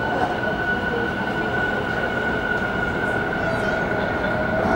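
Inside a Tobu 50000-series electric commuter car pulling away from a station: steady running noise with a constant high hum, and the traction motor whine rising in pitch from about three seconds in as the train gains speed.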